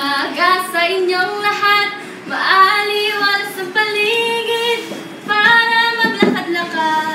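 A female voice singing a melody in long held phrases, with short breaks about two seconds in and again about five seconds in.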